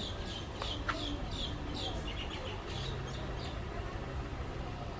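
Small birds chirping, a quick run of short high chirps several a second that dies away about three and a half seconds in, over steady low street rumble.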